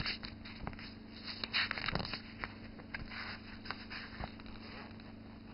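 Faint handling noise: scattered light knocks and clicks with brief rustling, the busiest stretch about one and a half to two seconds in.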